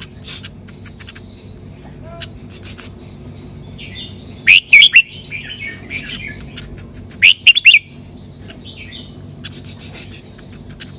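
Red-whiskered bulbul singing in a cage: loud, quick warbled phrases about four and a half and seven seconds in, with softer chirps and short clicks between.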